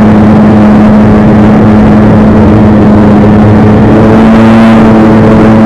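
Bickle Built Outlaw 600 race car's engine running loud and steady at one low, unchanging pitch while the car rolls slowly off the throttle.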